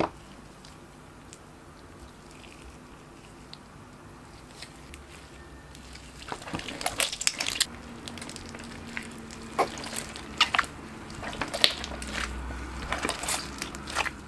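Hands kneading white glue slime mixed with crushed lipstick chunks, making sticky squelching and irregular crackling clicks. It is faint for the first few seconds and grows busier about six seconds in.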